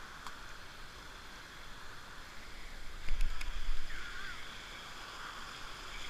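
Rushing water of a small rocky cascade, a steady hiss, with a burst of low rumble on the microphone about three seconds in.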